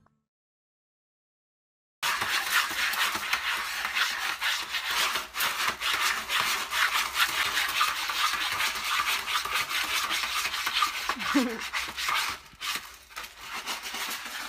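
A cat scratching and digging in granular cat litter in a plastic litter tray: a dense, rasping scrape made of many quick scratches. It starts after about two seconds of silence.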